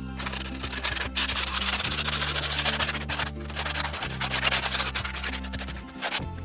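Sanding of dried fiberglass, a dense scratchy rubbing that is loudest from about two to four seconds in, over background music with steady bass notes.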